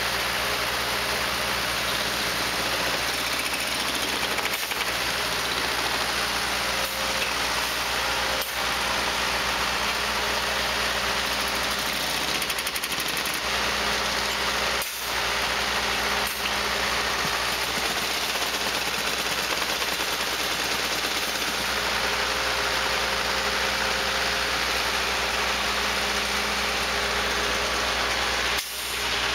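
Engine of a small rail-mounted track maintenance machine running steadily, with a few brief dips in the sound.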